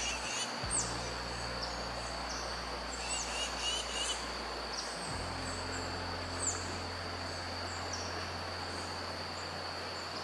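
Riverside ambience: the shallow river running over rocks as a steady hiss, under a steady high-pitched insect drone. Birds call over it, with short downward-sweeping chirps every few seconds and a brief twittering at the start and again around three to four seconds in.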